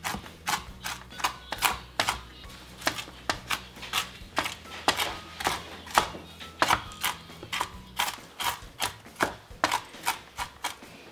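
Kitchen knife chopping walnuts on a plastic cutting board: a steady run of quick, sharp knocks, about three a second.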